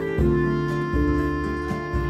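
Background music: instrumental track with sustained melodic notes over a regular bass line.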